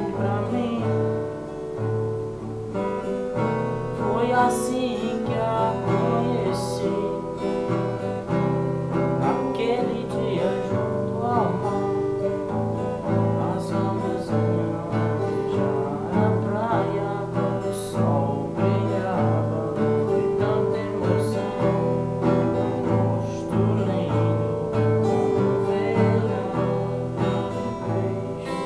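Classical nylon-string acoustic guitar strummed in a steady rhythm, with a man singing along.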